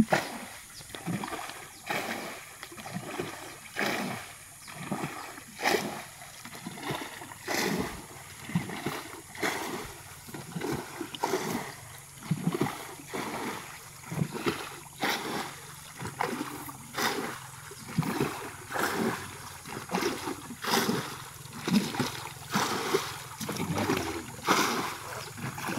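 Muddy water pouring and gurgling through a small earth dam in a drainage ditch, with irregular splashes and sloshes about once or twice a second.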